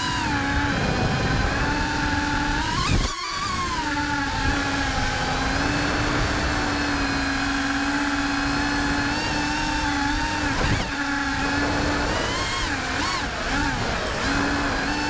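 FPV quadcopter's brushless motors whining steadily, picked up by the onboard camera, with wind noise underneath. The pitch drops sharply and recovers a few seconds in, and wavers again a couple of times in the second half as the throttle changes.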